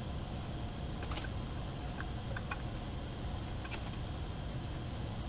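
Steady low background hum with a few faint light clicks and ticks as a camshaft is slid by hand out of an AMC 360 V8 block, its lobes knocking lightly against the cam bearings.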